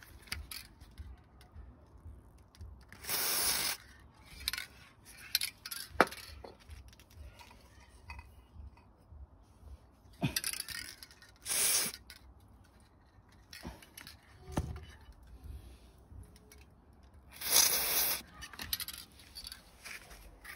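Aerosol can of WD-40 dry PTFE lubricant sprayed in several short hissing bursts, the longest near the end, to lubricate an electric unicycle's pedal hangers. Sharp clicks and light metal clinks come between the bursts, the loudest click about six seconds in.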